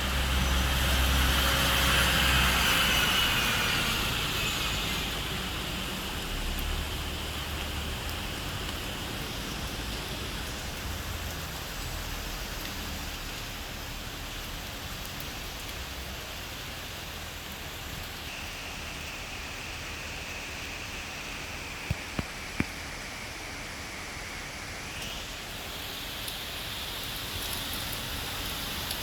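Steady rain falling, with a vehicle passing on the wet road during the first few seconds, loudest about two seconds in and then fading. Three sharp clicks come a little past the middle.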